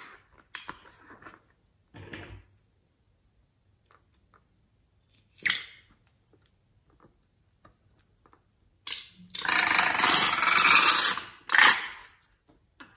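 Slime-filled rubber balloon squeezed over a bowl of slime: short rubbing and squelching noises, then pink slime and air forced out of its neck. About nine seconds in comes a loud rushing hiss lasting about two seconds, followed by one more short burst.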